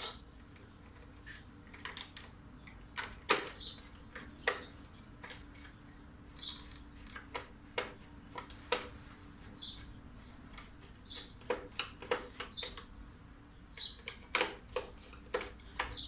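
Sharp clicks and knocks as hands work the plastic housing, switch block and wiring of an opened tub vacuum cleaner. A few short high chirps come in now and then.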